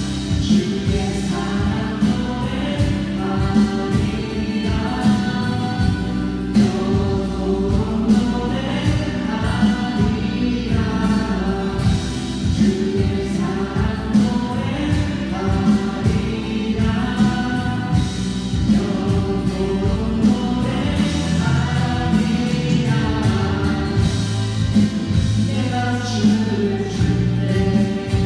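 A group of voices singing a Korean worship song together, with a steady-beat instrumental accompaniment.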